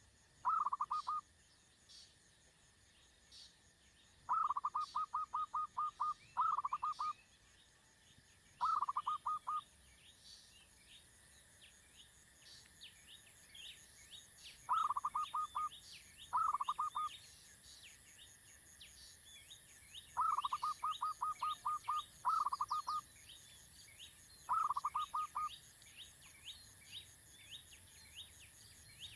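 Coucal chick calling in about nine short bursts of rapid, even stuttering pulses, each about a second long and repeated every few seconds. Behind it runs faint, high, thin chirping.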